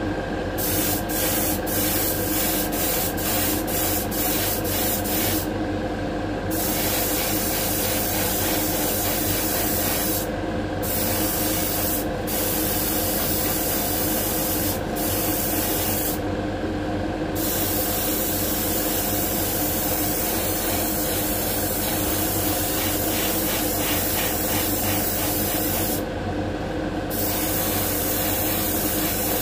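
Small gravity-feed spray gun hissing as it lays the blue colour coat, the trigger released briefly many times: quick on-off flicks in the first few seconds, then longer passes with short breaks. A steady motor hum runs underneath.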